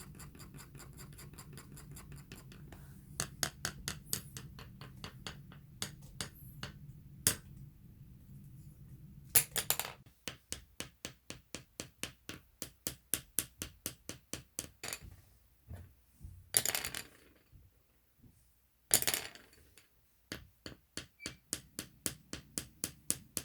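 Rapid light tapping on a floor, about four taps a second, with a few louder scuffing scrapes along the way.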